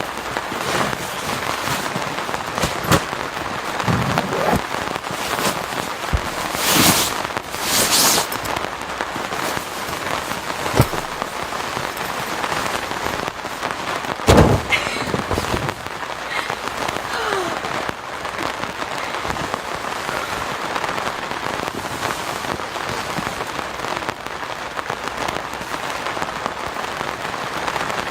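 Heavy rain falling steadily, with a few sharp knocks and short rustles, the loudest knock about halfway through.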